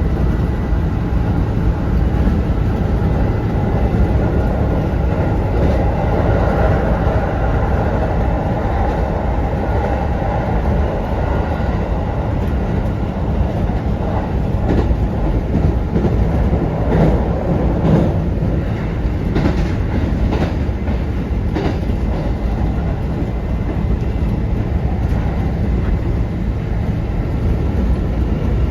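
Kintetsu 1810 series electric train running at speed, heard from inside the car: a steady rumble with the clack of wheels over rail joints, coming in a run of clacks midway through.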